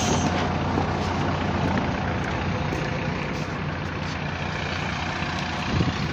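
Diesel engine of a MAZ-105 articulated city bus running steadily at a bus stop, a low even hum heard close by from the pavement.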